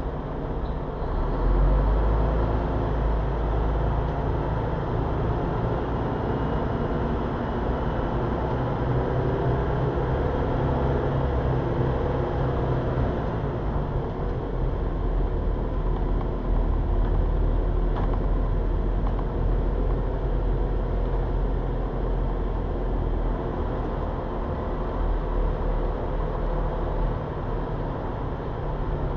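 Ligeirão express bus driving along its route: a steady low rumble of engine and road noise that swells about a second and a half in.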